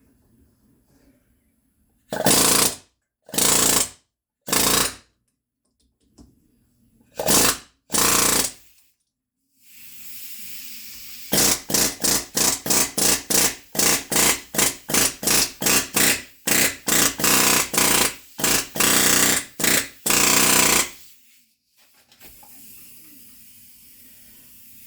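Pneumatic rivet gun hammering in short bursts while bending over tabs: a few separate bursts, then a quick run of about two bursts a second for some ten seconds, with compressed air hissing between them.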